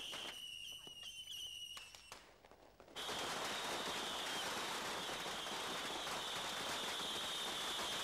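Fireworks going off: scattered sharp cracks at first, then, after a brief lull about two seconds in, a dense, continuous crackling hiss of massed rockets and firecrackers with a steady high whine running through it.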